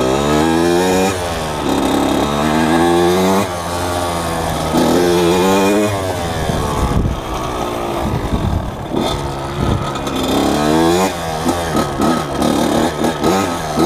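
Two-stroke dirt bike engine being ridden, revving up in several rising pulls with drops in pitch between them, then short choppy blips of throttle in the last few seconds.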